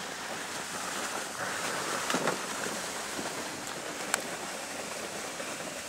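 Steady wind blowing across the microphone, with a short faint knock about two seconds in and a sharp click about four seconds in.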